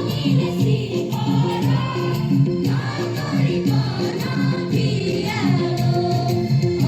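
A song with a group of voices singing over accompaniment that has a steady, repeating beat.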